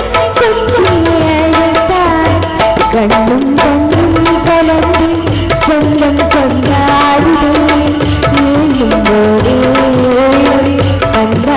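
A girl's solo singing voice carries a Tamil film-song melody into a microphone, with held notes that bend and ornament. A live band backs her with a steady drum beat.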